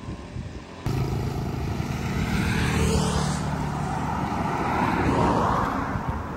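Road vehicles passing close by: a steady engine hum with a tyre and air whoosh, one pass sweeping down in pitch about two to three seconds in and another wash of sound about five seconds in.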